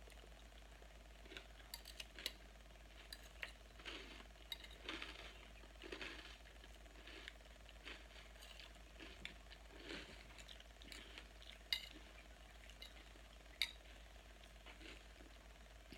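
Soft, irregular crunching of a person chewing crunchy salad of lettuce and croutons, with two sharper clicks near the end.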